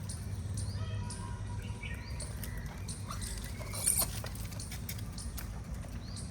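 Short squeaky animal calls and chirps with scattered clicks and rustles over a steady low rumble.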